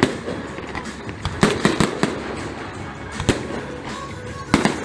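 Fireworks going off at a display: sharp bangs in quick clusters, one about a second and a half in and another near the end, with a single bang in between.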